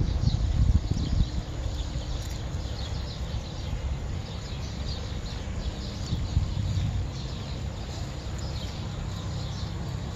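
Many small birds chirping and twittering throughout, over a steady low rumble that is loudest in the first second or so.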